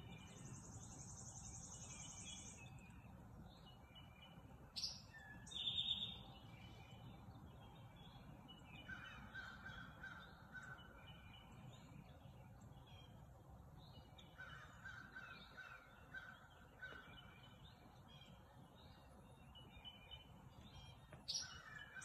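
Faint mixed chorus of wild birds calling and singing, with a rapid high trill near the start and a few series of repeated, evenly spaced calls midway and near the end.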